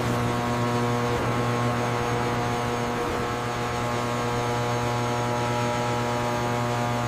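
Steady electrical hum of power transformers, an even drone with a buzzing edge.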